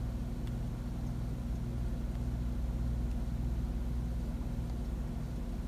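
A KitchenAid stand mixer's motor running with a steady low hum as its paddle attachment turns through a stiff, slightly sticky bread dough.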